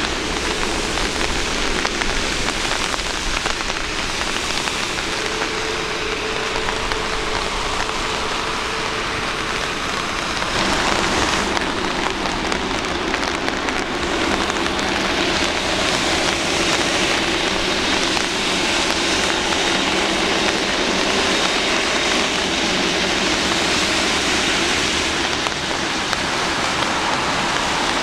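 Steady rain mixed with the jet engines of Boeing 747 freighters: distant takeoff thrust at first, then, about ten seconds in, a low hum and faint high whine from a 747's engines at low power as it rolls on the wet runway.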